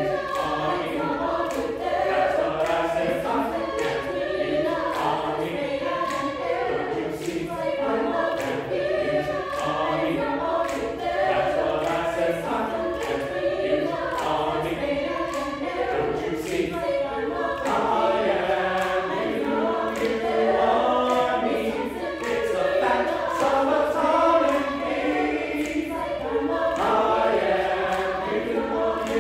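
Mixed choir of men and women singing, with several voice parts sounding together continuously.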